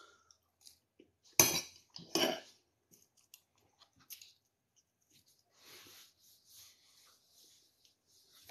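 Eating at the table: a spoon clinking and scraping in a bowl, and chewing. Two short louder noises come about a second and a half and two seconds in, then only soft clicks and scrapes.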